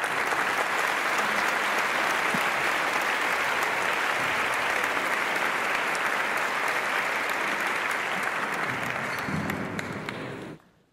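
A room full of people applauding steadily; the applause cuts off abruptly near the end.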